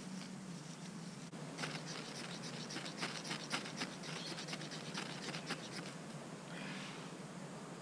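Dry grass tinder crackling and scratching as it is worked by hand to start a fire: a rapid, irregular run of crisp clicks that starts about a second and a half in and stops after about five and a half seconds.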